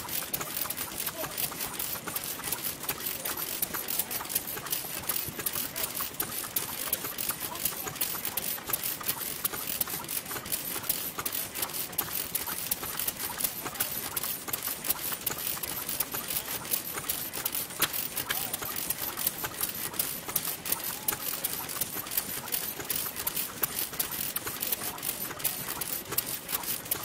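Noda single-cylinder kerosene stationary engine running, a fast, uneven clatter of clicks and knocks, with other old stationary engines running alongside.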